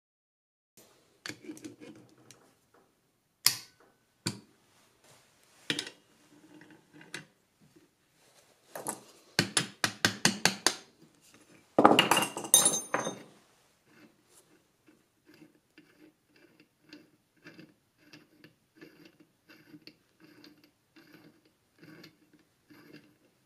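Steel hand tools clinking and knocking against the mini mill's steel spindle nut as locking pliers are set on it, with a rapid cluster of sharp metallic clinks about halfway through as the loudest part. Then comes a run of light clicks, about two a second, as the left-hand-threaded spindle nut is turned off by hand.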